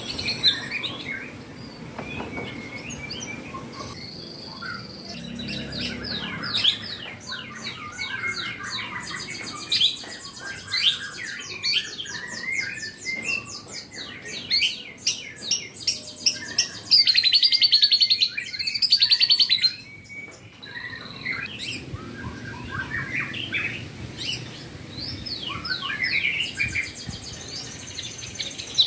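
White-rumped shama (murai batu) song: a varied run of sweeping whistles and rapid repeated chirps, with two loud, fast trills a little past the middle.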